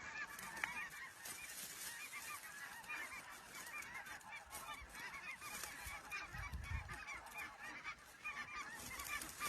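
A flock of geese honking, many short high calls overlapping continuously, faint.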